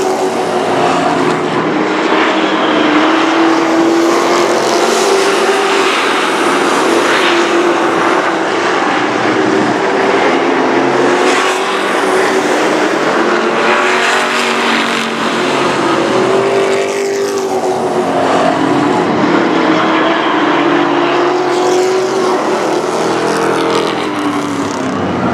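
A pack of short-track race trucks running at racing speed around the oval, their engines' note rising and falling as they go through the turns and pass by.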